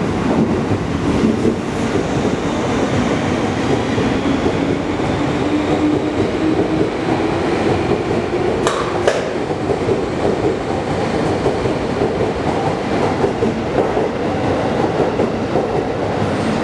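JR East 251 series Super View Odoriko electric train departing and passing close by: steady wheel and running noise on the rails, with a whine that rises slowly in pitch as it gathers speed. A brief sharp noise comes about halfway through.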